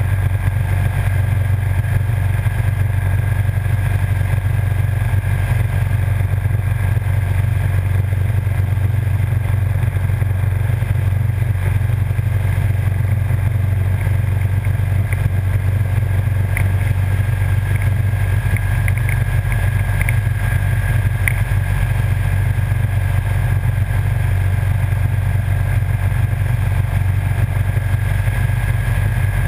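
Motorcycle cruising at a steady speed: a constant low engine drone mixed with wind and road noise, with no change in engine pitch.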